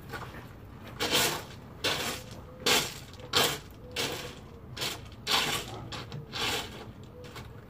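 A series of short, gritty scraping and crunching strokes on dirt and grit, about eight of them at irregular intervals of roughly half a second to a second.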